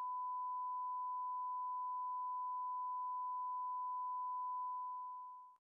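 Broadcast test tone played with SMPTE colour bars: one steady, unbroken sine-wave beep at the standard 1 kHz line-up pitch, fading out and stopping near the end.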